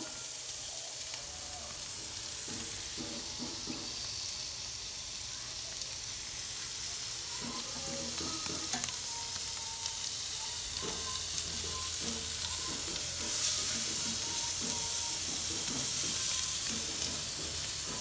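Steaks sizzling on a hot grill grate and in a skillet, a steady hiss that gets a little louder about eight seconds in, with scattered clinks and scrapes of metal tongs on the grate as the steaks are turned and moved.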